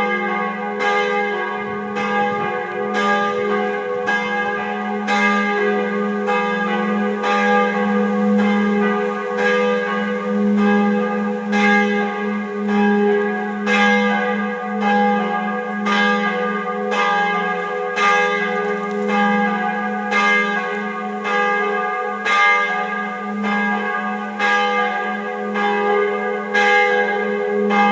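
The bells of two churches pealing together: a continuous stream of overlapping strikes, a little more than one a second, over a deep hum from the largest bell ringing on.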